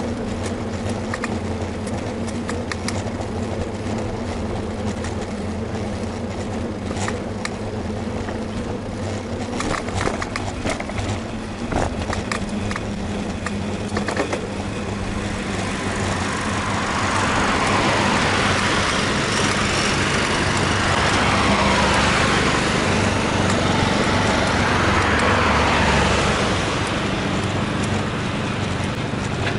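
Street traffic heard from a moving bicycle: a steady low rumble with scattered clicks, then a road vehicle passing close by, louder for about ten seconds from about halfway through.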